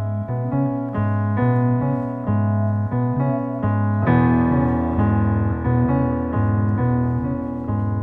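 Piano music: sustained chords over a bass note that pulses in even blocks. The texture thickens and grows a little louder about four seconds in.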